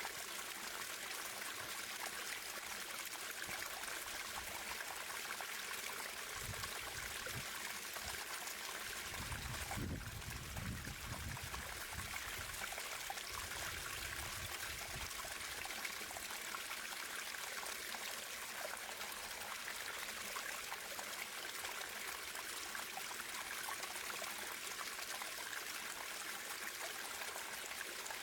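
Natural running water trickling and splashing steadily, with a low rumble for several seconds near the middle.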